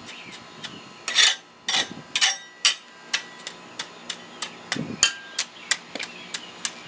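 Metal garden hoe blade chopping and scraping through loose cold-patch asphalt: an irregular run of sharp, gritty clacks, a few a second, loudest in the first two or three seconds.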